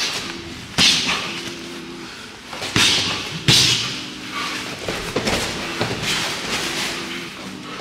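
MMA sparring blows landing: a series of sharp thuds and slaps of gloved punches and kicks, the loudest about one, three and three and a half seconds in.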